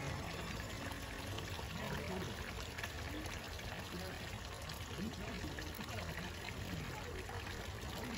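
Hot water pouring from a spout and splashing into a shallow bath, a steady trickling splash, with faint voices in the background.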